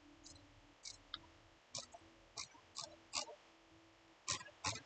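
Faint, scattered clicks of a computer mouse and its scroll wheel, about seven over the few seconds, with two louder clicks close together near the end.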